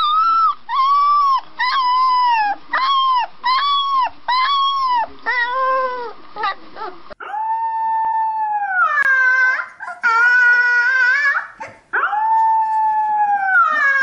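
A golden retriever puppy gives a string of short yelping howls, each rising and falling, about one a second. Then a grey-and-white husky-type puppy howls three long drawn-out times, each howl dropping in pitch at its end.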